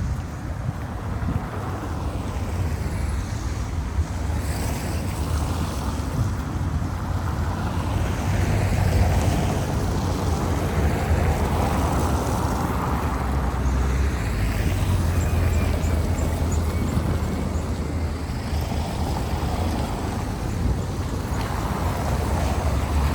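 Outdoor city ambience with wind buffeting the microphone: a steady low rumble under a rushing hiss that swells and fades every few seconds, with distant traffic noise.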